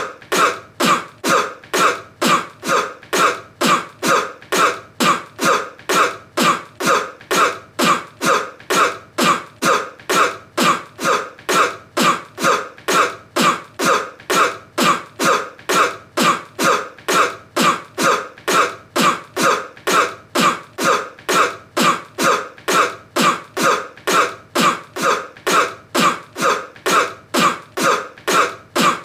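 A person's cough repeated over and over at a perfectly even pace, about two coughs a second, each one alike.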